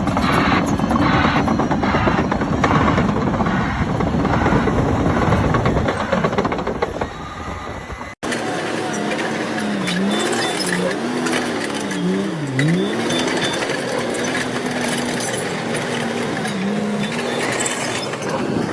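Heavy machinery working: a noisy rhythmic clatter at two to three strokes a second, then after a sudden cut about eight seconds in, an engine whose pitch sags and recovers as it takes load.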